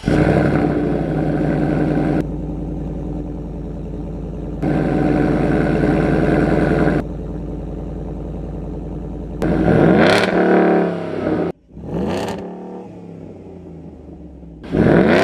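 Ford F-150's 5.0 L Coyote V8 running through a Corsa Extreme cat-back exhaust with dual tips, idling from a semi cold start, its level jumping abruptly a few times. About ten seconds in it is revved twice, the note rising and falling each time before it settles back to idle.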